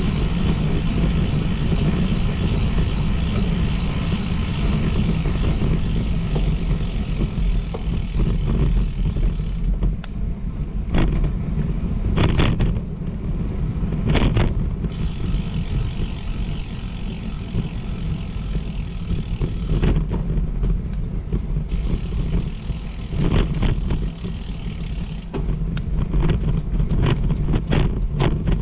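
Steady low rumble of wind buffeting and tyre noise from travelling along a path, with a few sharp knocks or rattles in the middle and again near the end.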